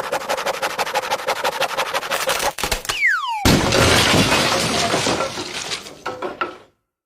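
Cartoon sound effects: a fast rattling clatter of about ten clicks a second, then a short falling whistle about three seconds in, followed by a loud crash of breaking and shattering that dies away over about three seconds.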